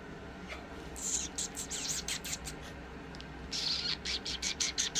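A young puppy mouthing and sucking on a person's fingers, making a quick series of short wet clicking smacks, about five a second, in two runs.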